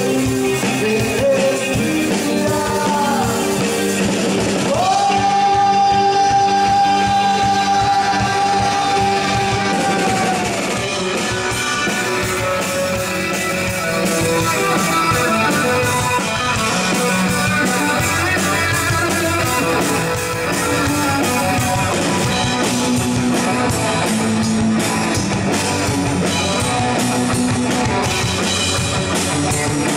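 Live rock band playing: electric guitar, bass guitar and drum kit with singing. A long high note is held from about five seconds in for about five seconds.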